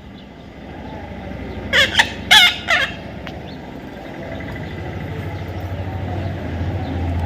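Parrot calling: three short, loud, harsh calls close together about two seconds in. A low steady rumble builds through the second half.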